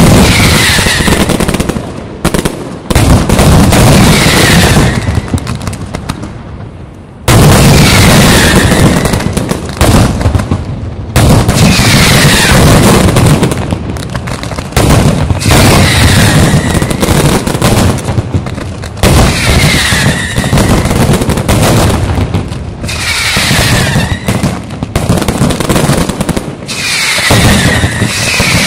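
Mascletà: strings of masclets and firecrackers going off in a dense, very loud, rapid-fire barrage of bangs. The barrage thins briefly about six seconds in, then comes back suddenly at full force.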